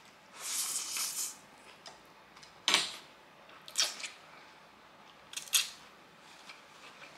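Close-up mouth sounds of eating spicy fire noodles: a slurp lasting about a second near the start, then three short wet smacks spread through the rest.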